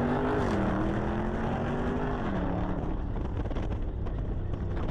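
Car engine under acceleration, its pitch rising steadily for about two seconds, then dropping and fading out as the throttle comes off. Steady road and wind noise with light crackles follows.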